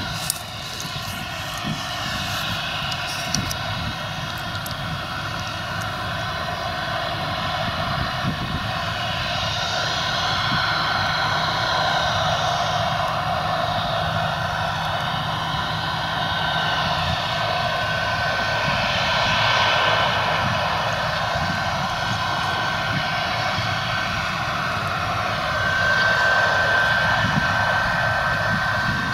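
Claas Lexion combine harvester running while cutting and threshing wheat: a steady dense drone of engine and threshing machinery, growing a little louder as it comes closer, with a thin steady whine joining about halfway through.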